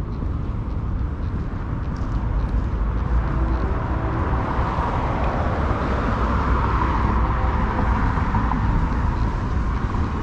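Downtown street ambience: a steady low rumble, with the noise of a passing vehicle swelling in the middle and easing off near the end.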